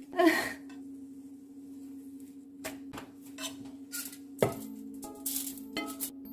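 Frying pan and utensil clatter: a loud scrape just after the start, then a run of light clinks and knocks, the loudest a sharp knock about four seconds in as the pan goes back onto the gas stove grate. A steady low hum runs underneath.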